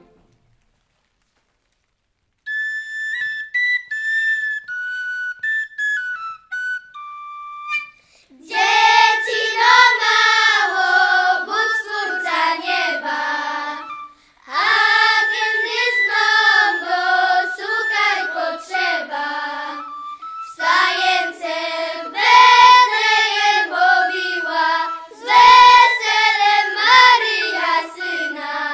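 A group of young voices singing a Christmas carol together in Polish highland folk style, in phrases with short breaks. It is preceded by about two seconds of silence and then a short, high, thin melody of single notes, like a small flute or whistle.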